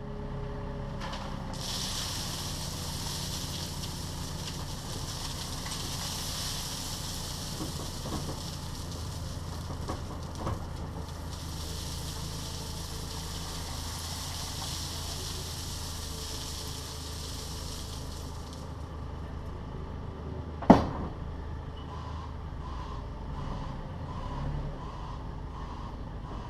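Takeuchi TB216 mini digger's diesel engine running steadily. A high hiss joins it from about two seconds in and stops a couple of seconds before one sharp metallic clank, the loudest sound, about twenty seconds in.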